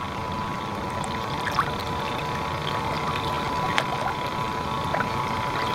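Steady whine of a radio-controlled model tugboat's motor heard from on board, with water splashing and lapping against the hull in small ticks.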